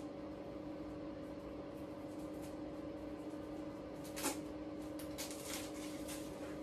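Scissors cutting a bath bomb's wrapper: one sharp snip about four seconds in, then a run of small crackling clicks over the next two seconds, over a steady low hum.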